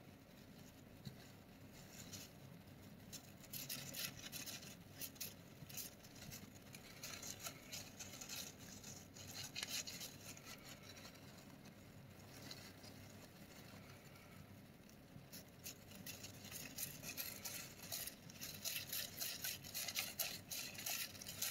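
Faint rustling and crackling of paper bedding as a pearl white Djungarian hamster moves and digs through it. It comes in irregular spells of quick, scratchy crackles, thickest near the end.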